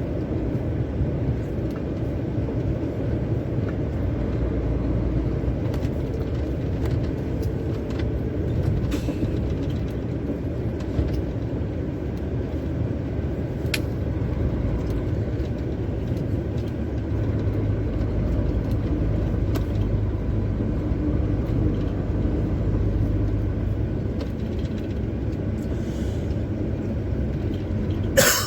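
Steady engine drone and road rumble inside a truck cab while driving, with a few faint clicks.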